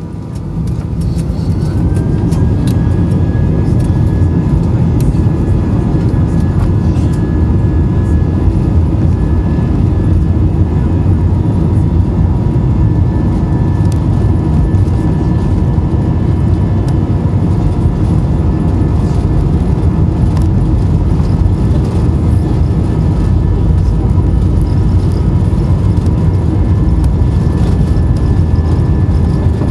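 Airbus A320 jet engines heard from inside the cabin, spooling up to takeoff power: the sound swells over the first couple of seconds with a whine that rises and then holds steady. A loud, steady rumble follows as the airliner accelerates down the runway.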